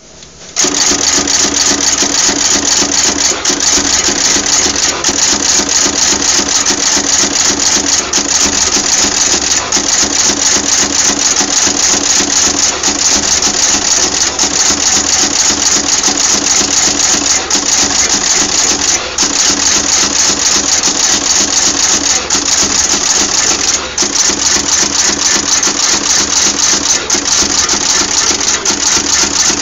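PCB auto insertion machine running, cutting taped axial resistors from their tape and pressing them into a circuit board. It makes a fast, even clatter of mechanical clicks over a steady hiss.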